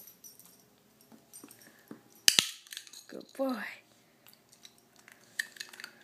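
A training clicker gives a sharp double click about two seconds in, marking the puppy's sit. Light ticks and jingles from the dog's collar tag and claws on the wooden floor come before and after it.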